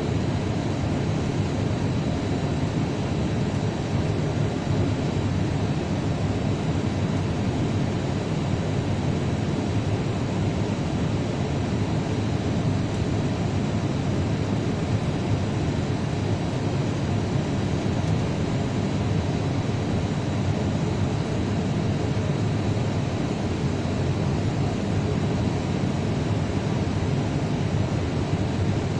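Steady cabin noise inside an Airbus airliner taxiing on the ground, its engines at low power, with a faint steady high whine.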